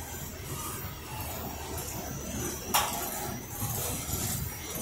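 Coal train's loaded hopper cars rolling slowly past, a steady low rumble and scrape of steel wheels on rail, with one sharp metallic clank a little under three seconds in.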